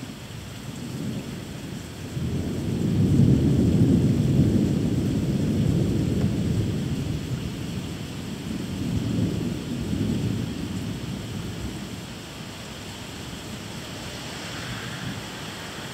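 Long rolling thunder from a nighttime thunderstorm. It builds about two seconds in, is loudest soon after, swells once more and then fades, over a steady hiss of rain.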